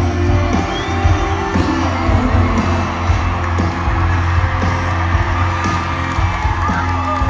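Live band playing a concert intro with a heavy, steady low end and sustained tones, over a cheering arena crowd with scattered whoops.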